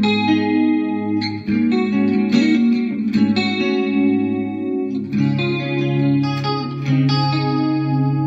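Electric guitar played with a clean tone through an effects setup: chords strummed and left ringing over a sustained low note. A new chord comes in about a second in and again about five seconds in, where the low note moves.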